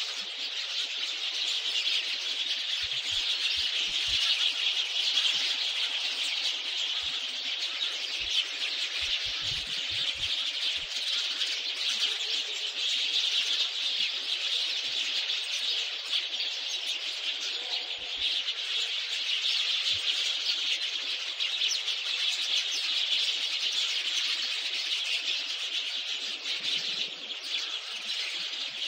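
A steady chorus of many birds chirping.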